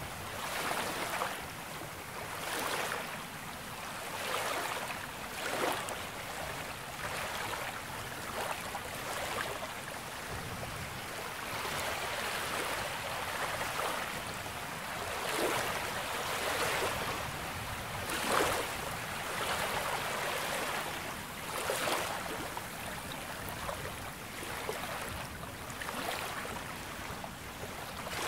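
Small sea waves breaking and washing up a beach shore, with a fresh surge of hiss every few seconds.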